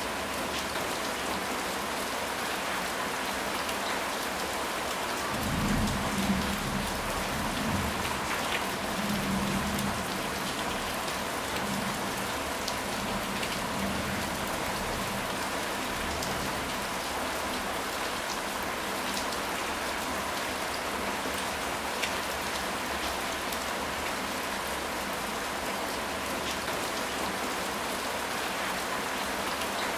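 Steady rain falling, an even hiss of drops. A low rumble of thunder comes about five seconds in and lasts about four seconds.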